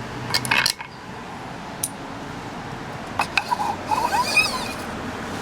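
Metal clinks and knocks as the water pump housing on a Yamaha 15 hp two-stroke outboard's lower unit is worked loose by hand, with a brief squeak about four seconds in.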